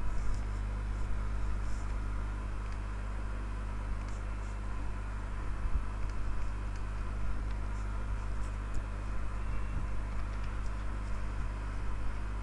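A steady low hum under a faint even hiss, with a few faint clicks.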